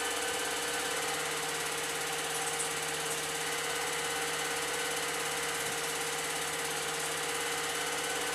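Old 8mm film projector running: a steady mechanical sound from its motor and film advance, with a constant hum.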